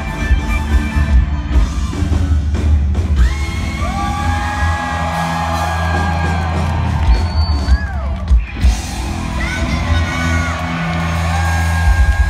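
Live J-rock band playing loud, with heavy bass and drums, electric guitar, and voices singing and whooping over it.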